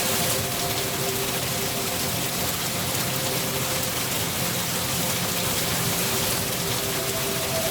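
Steady rain falling, an even hiss with no breaks, with a few held tones sounding softly underneath.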